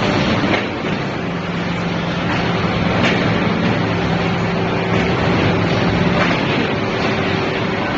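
Plywood hot press and its automatic loader running in the mill: steady mechanical noise with a low hum and a few light clicks.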